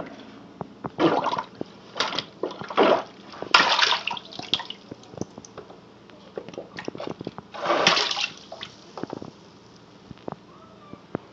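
Rubber plunger pumping a clogged kitchen sink drain under standing water: sloshing, splashing surges in about five bursts, the longest just before halfway and another near two-thirds through, with small knocks and splashes between.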